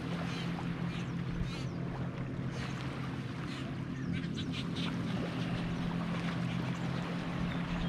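Ducks quacking and other birds calling in short bursts, thickest in the middle, over a steady low drone.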